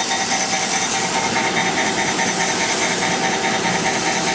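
Wasino Meister V3 CNC surface grinder slot grinding a hardened S7 steel punch. The wheel runs with a steady whine while the table strokes back and forth at about 300 strokes a minute, giving a rapid, even pulsing.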